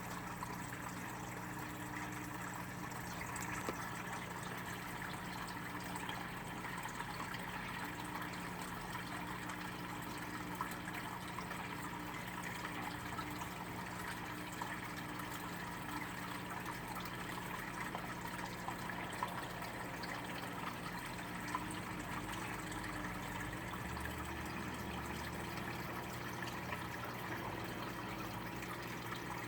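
Steady low electrical hum with even hiss and a few faint scattered ticks.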